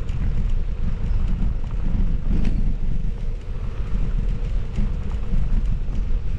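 Wind rumbling on the microphone of a moving mountain bike rider, with scattered small clicks and rattles.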